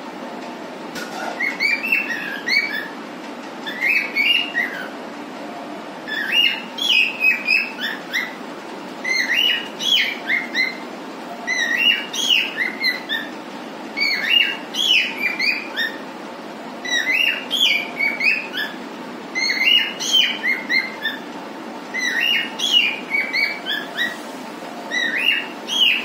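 Cockatiel singing: short clusters of quick, warbling whistled chirps repeated every couple of seconds, over a steady low background noise.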